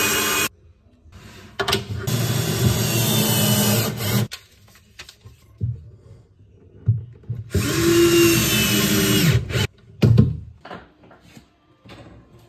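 Cordless drill-driver running in three separate bursts as it drives screws. The first is brief at the start, the next two last about two seconds each, and the last winds down at its end. A short knock follows about ten seconds in, then faint handling clicks.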